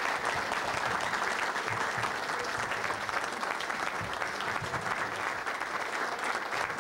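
A large audience applauding, many hands clapping steadily in a dense, even patter.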